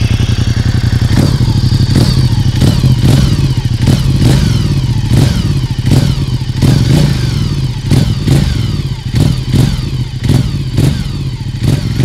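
Ducati XDiavel S's 1262 cc L-twin engine idling, then revved in place in a quick run of short throttle blips, about two a second, each rising and dropping back.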